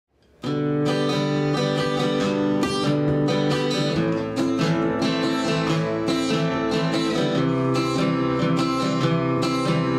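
Opening music: a strummed acoustic guitar playing chords at a steady level, starting about half a second in.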